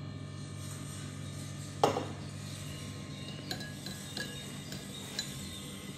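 A sharp knock about two seconds in, then a metal spoon clinking lightly four or five times against a small ceramic bowl of sauce as it is stirred and scooped, over a steady low hum.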